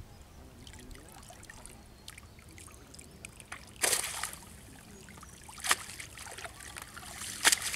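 Pond water splashing as a cast net is gathered and lifted out of the water: light trickling and dripping at first, then three short loud splashes, about four seconds in, near six seconds and near the end.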